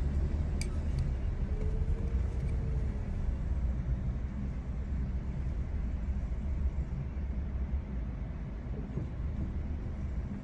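Steady low rumble of engine and road noise heard inside a moving car's cabin.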